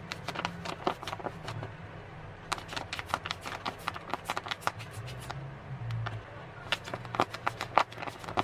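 Paper being handled, rustling and crinkling, with many quick irregular crackles and clicks over a faint steady low hum.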